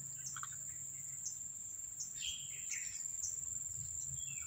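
Steady high-pitched drone of insects, with short bird chirps now and then.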